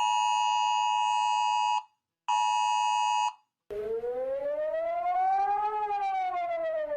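Emergency Alert System attention signal: a steady two-pitched alarm tone, heard twice, first for about two seconds and then for about one. Partway through, a siren wail starts, rising slowly in pitch and then falling again.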